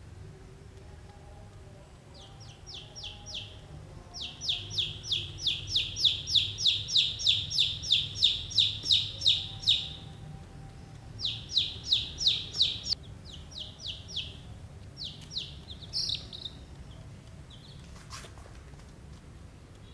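Chicks peeping loudly in rapid runs of high, falling notes, about three to four a second, with the longest run in the first half and shorter bouts after. A single sharp knock comes near the end.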